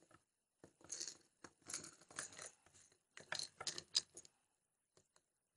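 Faint clicks, taps and rustles of small plastic toy figures being handled and moved on a tabletop, coming in several quick clusters between about one and four seconds in.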